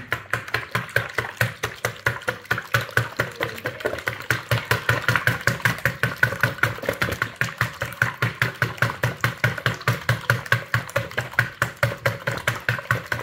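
Eggs being beaten by hand with a silicone-coated wire whisk in a plastic mixing bowl: a fast, even rhythm of whisk strokes slapping through the liquid and against the bowl.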